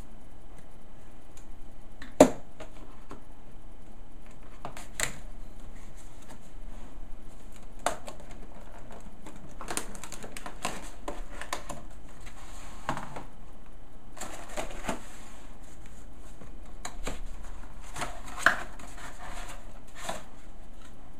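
Cardboard and clear plastic packaging being opened and handled: scattered clicks, rustles and crinkles, with a sharp snap about two seconds in and another near the end.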